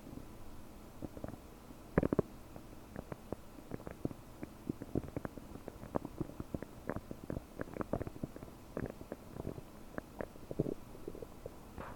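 Human stomach and intestines gurgling and bubbling, recorded up close: a long irregular run of short pops and gurgles, the loudest about two seconds in. The belly is bloated from a large helping of prunes, and the sound is bubbly.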